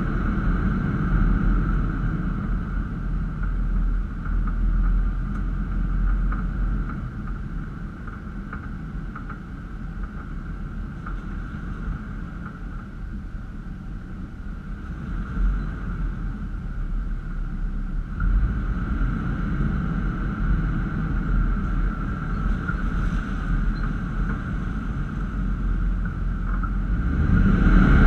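Toyota Land Cruiser FZJ80, with its 4.5-litre straight-six, driving slowly along a rough dirt trail: a continuous low engine and tyre rumble, a little quieter in the middle and louder again near the end.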